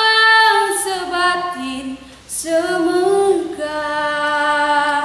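A young woman singing solo and unaccompanied, a Lampung regional song in the Lampung language: a long held note, a short break for breath about two seconds in, then a new phrase that ends on another long held note.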